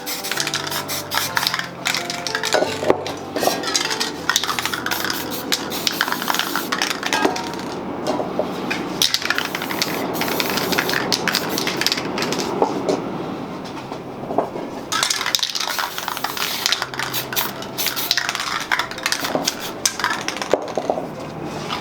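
Spray-painting work noises: rapid metallic clinks, knocks and scraping of cans and tools, with a stretch of steady aerosol spray hiss partway through; faint music underneath.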